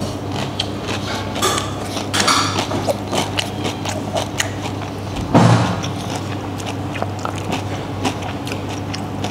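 Crunching and chewing of a crispy deep-fried wonton: a scatter of sharp little cracks over a steady low hum, with one brief louder sound about five and a half seconds in.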